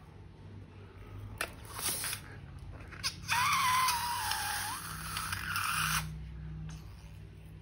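A rubber balloon squealing for about three seconds, its pitch dipping and then rising, after two short rustles.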